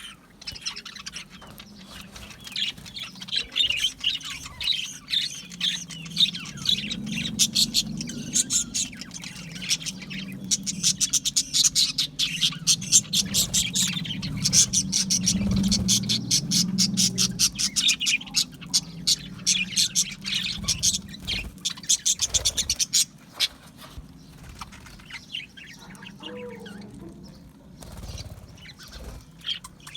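A flock of budgerigars chattering and squawking: a dense stream of quick chirps and scratchy calls, thinning out in the last several seconds, over a low hum.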